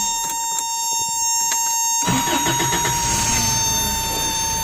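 Toyota 22RE four-cylinder engine turning over and catching about two seconds in, then running: it now starts after a cranks-but-no-start repair. A steady high-pitched warning buzzer sounds throughout, with a few clicks before the engine catches.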